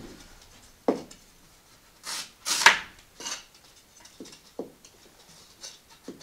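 Handling sounds of a wooden measuring stick and a hot knife against rigid foam insulation panels: a light knock about a second in, two short scraping rubs, the loudest sounds, a little past two seconds in, then a few faint taps as the tool is set on the foam.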